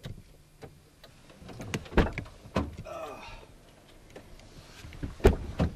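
Car doors being opened and people getting into a car: a series of sharp clicks and knocking thumps from the door latches, seats and bodywork.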